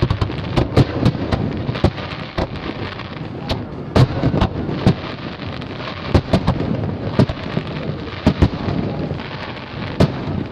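Aerial fireworks display: shells bursting in a rapid, irregular barrage of sharp bangs over a continuous din of noise.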